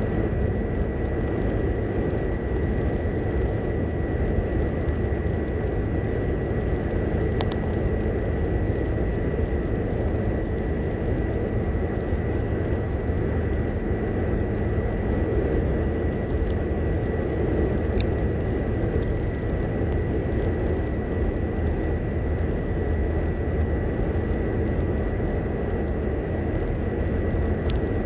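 Steady highway road noise inside a moving car's cabin: tyre and engine rumble at cruising speed, with a thin steady high tone throughout and a couple of faint clicks.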